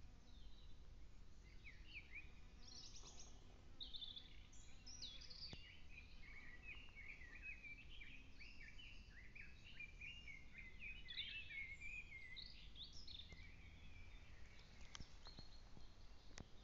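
Faint songbird singing: a long run of quick, varied chirps and warbles that stops about three-quarters of the way through. A few faint clicks follow near the end.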